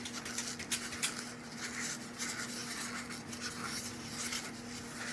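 Scratching and scraping as leftover material is picked out of a freshly CNC-engraved carving, with two sharp clicks about a second in. A steady low hum runs underneath.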